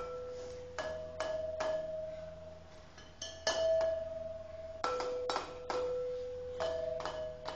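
Slow, sparse music of struck, bell-like tones at two or three pitches: about ten strikes, each note ringing on for a second or more before the next.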